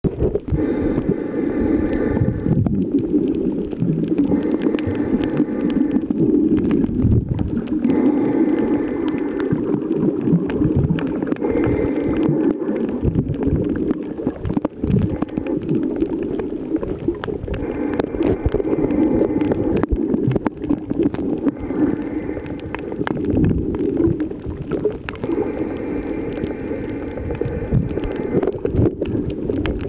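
Muffled underwater noise picked up by a camera held below the surface: a steady low rush of water with many irregular knocks and clicks as the camera moves. A faint higher whine comes and goes several times.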